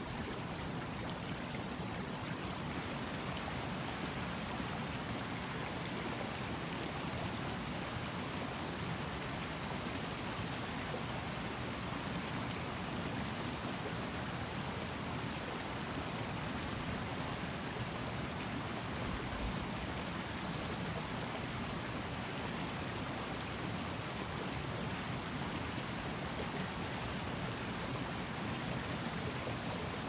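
Water running in a Scottish Highland mountain river, a steady, unbroken flowing noise.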